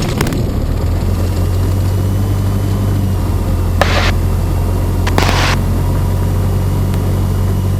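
Cessna 172N's four-cylinder Lycoming piston engine idling steadily just after start, heard inside the cabin. Two brief hisses cut in about four and five seconds in.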